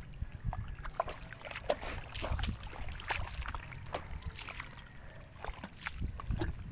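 Footsteps squelching through soft mudflat mud, with many small irregular clicks and pops over a low rumble.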